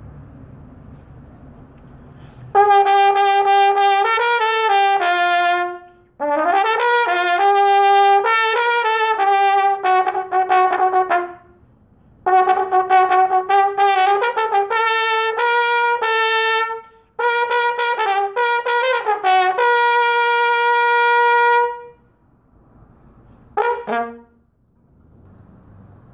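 A bell-front marching brass horn played solo in four phrases of several seconds each, with short breaths between them. The last phrase ends on a long held note, and one short note follows a couple of seconds later.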